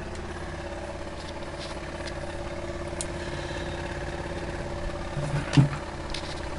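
Small electric motor driving a laser-cut steel 24-pole magnet rotor on its shaft, running at a steady speed with an even hum and whir. A brief thump comes about five and a half seconds in.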